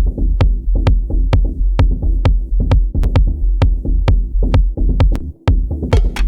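Electronic beat played live on Native Instruments Maschine 2: a steady deep bass line under a regular run of short, sharp percussive hits. The whole beat cuts out for a moment just after five seconds, then comes back with hissy hi-hat hits added.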